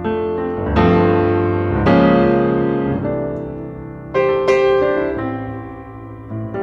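Background piano music: chords struck every second or two, each ringing and fading.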